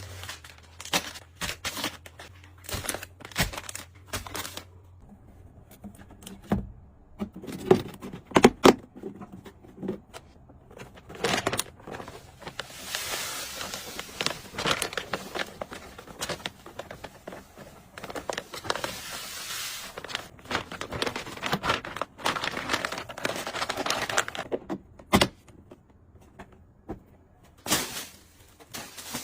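Close handling sounds: crinkling and tearing of packaging, with many clicks and taps of small objects and a soft hiss through the middle stretch.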